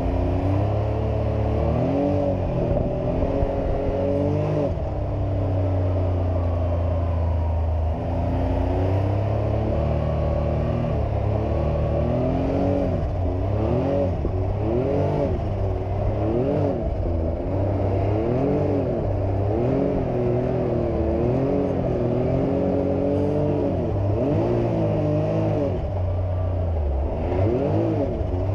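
Can-Am Maverick X3 XRC Turbo RR side-by-side driving, its turbocharged three-cylinder engine revving up and falling back again and again, with a steadier stretch in the first third.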